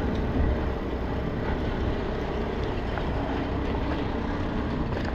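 Steady low rumble of wind and road noise on the microphone while moving.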